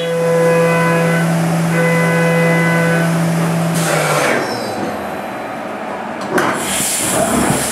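Haas VF-2SS CNC mill roughing a part under flood coolant: a steady spindle hum, with a high cutting tone from the end mill coming and going in stretches. About four seconds in, the spindle hum stops as the cut ends. Loud, hissing bursts of spray follow near the end.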